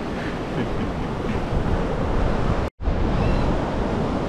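Surf breaking on a sandy beach, mixed with wind buffeting the microphone in a steady rumbling wash. The sound cuts out for an instant a little before three seconds in, then carries on.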